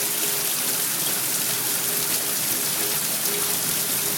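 Steady rain during a thunderstorm, an even hiss with a faint steady hum beneath and no thunder claps.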